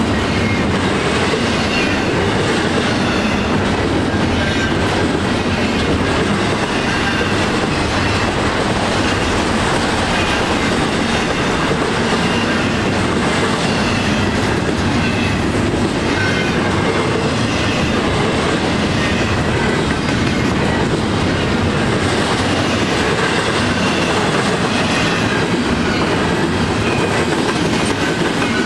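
Train cars rolling steadily past on the rails, a continuous clattering rumble of wheels on track with faint wheel squeals here and there.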